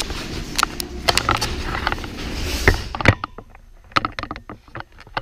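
A run of clattering knocks and clicks over a low rumble; the rumble stops suddenly about three seconds in, leaving sparser, sharper knocks.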